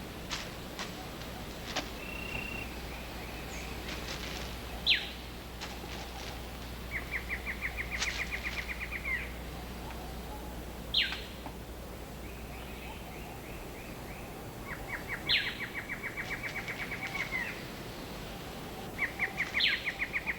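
Tropical rainforest ambience of bird-like animal calls: rapid pulsed trills, each about two seconds long, recur every few seconds. Four short, sharp calls slide downward in pitch, spaced about five seconds apart.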